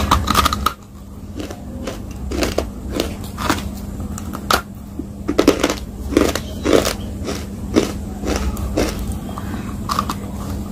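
Biting and crunching into a hard blue block held at the mouth, close to the microphone: a string of sharp cracks, about one a second or faster.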